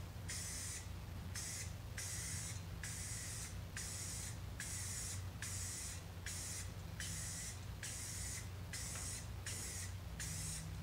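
Aerosol spray-paint can fired through a pistol-grip trigger handle, hissing in about a dozen short bursts just under a second each, with brief gaps between them: light passes of paint.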